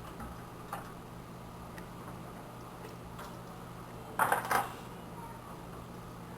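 Small metal computer parts being handled: a faint click, then about four seconds in a brief cluster of metallic clinks and clatter, over a low steady hum.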